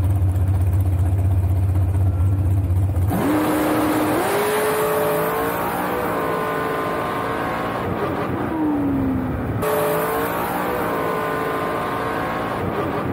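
Dragster engine heard from on board: a deep steady drone at the starting line, then about three seconds in it launches into full-throttle running, with a rising whine over the wind rush. The pitch drops around eight seconds, climbs again near ten seconds and falls once more near the end.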